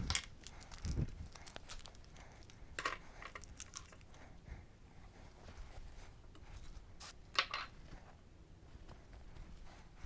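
Hand work on a motorcycle engine: scattered clicks, scrapes and rustling of parts and tools being handled, with a low thump about a second in and a sharp click about seven seconds in.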